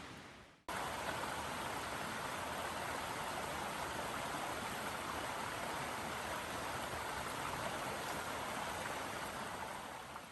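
Steady rain falling, an even rushing hiss that starts just after a brief dropout and fades away near the end.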